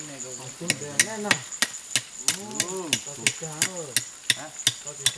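Knife chopping steadily against a stone, about three sharp strikes a second, with low voices rising and falling between the strikes and a thin, steady insect drone.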